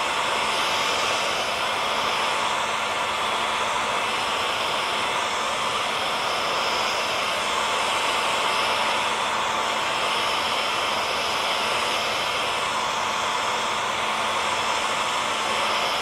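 Hair dryer running steadily on one setting: a constant rush of blown air with a faint, even motor whine and no change in speed.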